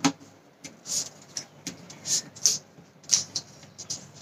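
A small square of thin paper rustling and crackling in the hands as it is folded and creased, in a quick irregular string of short rustles.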